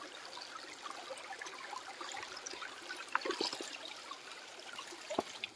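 Shallow stream water trickling over rocks around a freshly cut green bamboo tube dipped into it. A few light knocks come about three seconds in, and a sharp click comes near the end.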